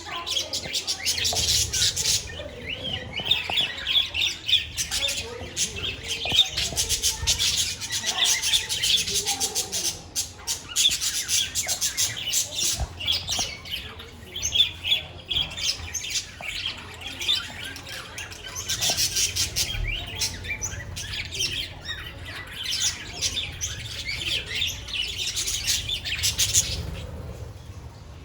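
A flock of budgerigars chirping, chattering and squawking continuously, many birds calling over one another.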